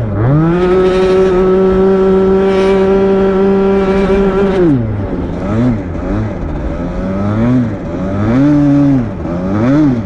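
Rotax Max 125 cc single-cylinder two-stroke kart engine at full throttle. Its pitch climbs fast and holds steady and high for about four seconds, then drops near the middle. After that it rises and falls again and again as the throttle is lifted and reapplied through the corners.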